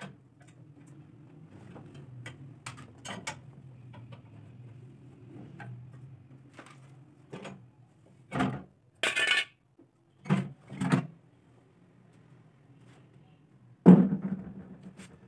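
Metal clinks, scrapes and knocks as the rusty steel fuel tank is worked loose and lifted off an old petrol generator's tubular frame, with a loud knock near the end.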